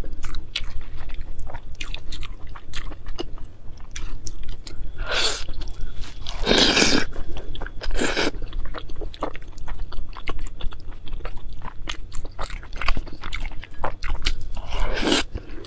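Close-miked eating sounds: a person chewing with dense wet clicks of the mouth, broken by a few longer slurps, one near the end as noodles are lifted to the mouth.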